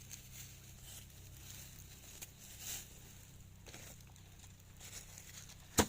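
Faint rustling and light ticks of handling over a low steady hum, with a single sharp click near the end.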